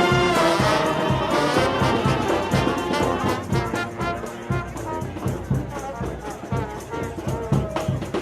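Music with a steady beat under sustained horn-like notes.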